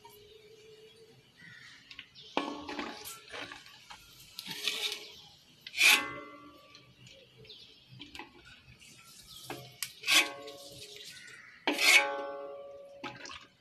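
Metal utensil scraping and knocking against a cooking pan of chicken heads and pork frying in hot oil. Three loud clanks ring on briefly after each strike, a few seconds apart.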